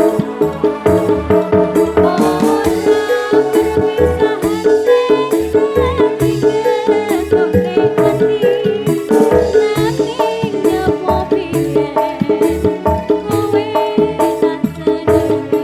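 Loud live band music over a PA system: a fast, busy percussion rhythm under a wavering melody line.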